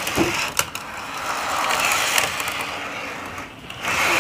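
Battery-powered toy train running on plastic track: a steady motor whir with the rattle of its wheels and gears, and a couple of sharp clicks about half a second in.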